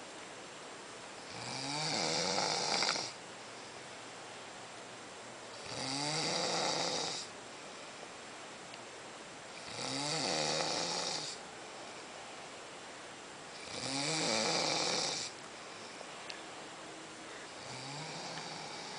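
A sleeping person snoring: five regular snores about four seconds apart, each starting with a short rising tone, the last one fainter.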